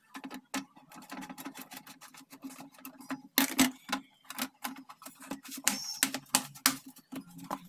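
Plastic back cover of a Dell LED monitor pressed home by hand: a quick run of clicks and snaps as its clips latch, with louder snaps about three and a half seconds in and again around six to seven seconds.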